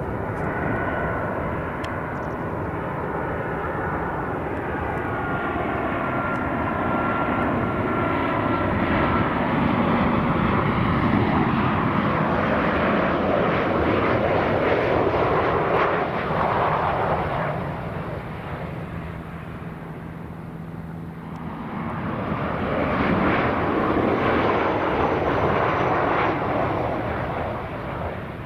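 Skymark Airlines Boeing 737-800 jet passing low on landing approach, its engines giving a steady roar with a thin whine that sinks slightly in pitch over the first several seconds. The roar builds to its loudest around the middle, fades, then swells again near the end as the plane is on the runway.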